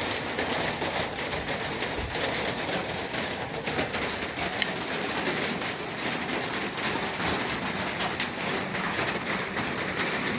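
Sandpaper rubbed by hand over the metal of a truck toolbox: a steady, even scratching.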